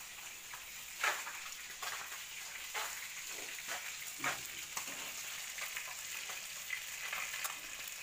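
Flounder frying in hot oil: a steady sizzle broken by scattered crackles and pops.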